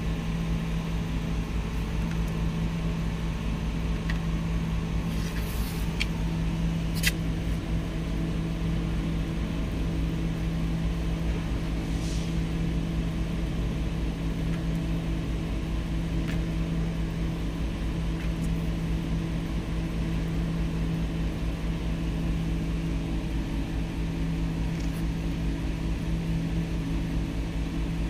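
Steady low mechanical hum of a running motor at a constant pitch, with a few brief clicks, the sharpest about seven seconds in.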